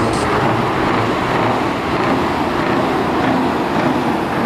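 Scania truck engine running loudly through open exhaust pipes, a steady, unbroken sound.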